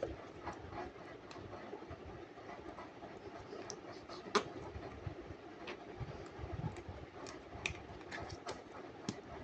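Faint handling noises of slime and its plastic containers: scattered small clicks and crackles, with one sharper click about four and a half seconds in.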